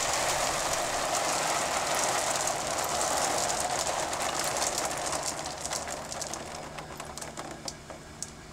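Homemade rock trommel's rotating wire-mesh drum with rocks and dirt tumbling and rattling inside, many small clicks over a steady low hum. The sound fades away over the last few seconds.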